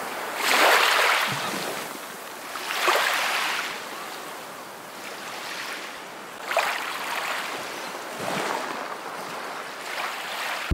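Rough sea: waves rushing and breaking over a steady wash of water, swelling louder every two to three seconds, with the biggest surge about half a second in.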